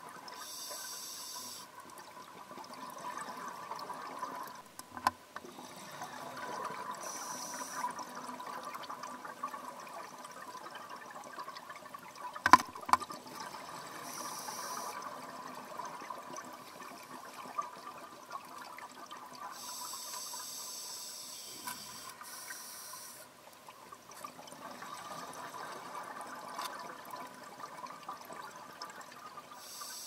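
Underwater: a midnight parrotfish biting and scraping rock and coral with its beak, heard as a few sharp crunches, the loudest about halfway through. Under it runs a steady hum, and a scuba diver's exhaled breath bubbles out every six or seven seconds.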